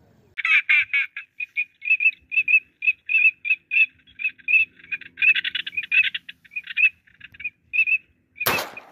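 Ducks calling in a long run of short, high calls, several a second, then a single loud shotgun shot near the end.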